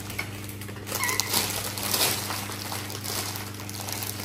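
Plastic bread bag crinkling as it is handled and reached into, loudest between about one and two seconds in, with light clicks of forks on ceramic plates and a brief high squeak about a second in, over a low steady hum.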